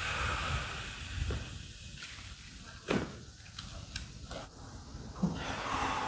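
Manual chiropractic adjustment: a soft hiss in the first two seconds, then a single sharp joint crack about three seconds in and a smaller pop about five seconds in.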